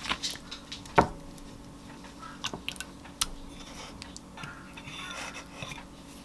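A wooden spoon scooping thick homemade Greek yogurt out of a glass container into a bowl: a sharp knock about a second in, then soft scraping and light taps of the spoon against the dishes.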